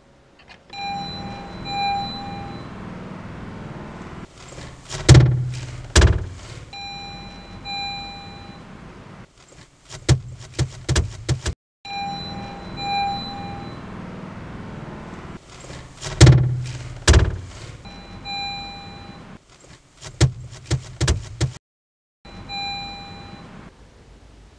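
A car's warning chime dings in short repeated notes over a low steady hum, then two loud thumps and a quick run of clicks. The whole sequence cuts off abruptly and repeats, playing twice and starting a third time.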